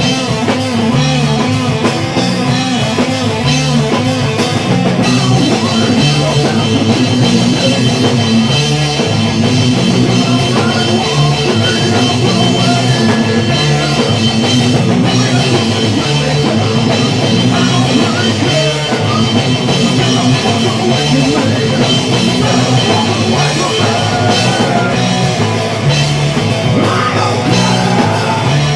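A rock band playing loudly and without a break: electric guitar, bass guitar and a drum kit driving a steady beat.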